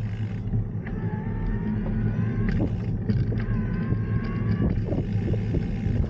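Steady low rumble of wind buffeting the microphone and tyres rolling on the road during a bicycle ride. Faint held tones come and go a few times over the top.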